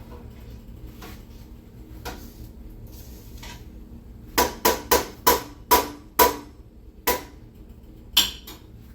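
A kitchen utensil knocking against a pot or jar: a quick run of about six sharp clinks a bit before halfway, then two more single clinks near the end.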